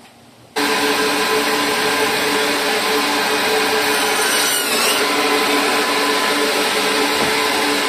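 Electric meat band saw running, a loud steady whir with a low hum that starts abruptly about half a second in.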